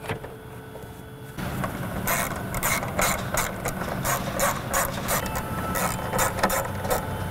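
Socket ratchet wrench clicking as it tightens the nuts holding down a Mustang GT's plastic engine cover, starting about a second and a half in as a run of quick clicks, about three or four a second.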